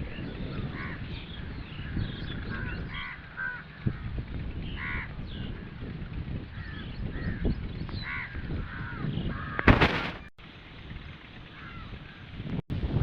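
Many short bird calls, over and over, above a low rumble, with one loud sharp knock about ten seconds in.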